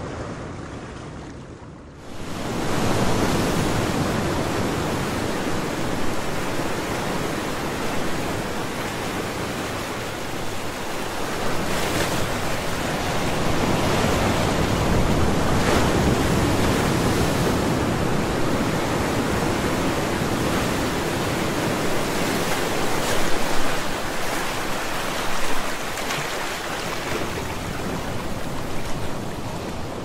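Ocean surf: waves breaking and washing in a continuous rush that swells and eases. It is low and muffled for the first two seconds, then comes in loud.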